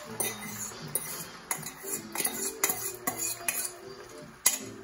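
A metal fork scraping and clinking against the inside of a stainless steel mixing bowl while beaten eggs are poured out into a frying pan: sharp metallic clinks at irregular intervals, about two a second.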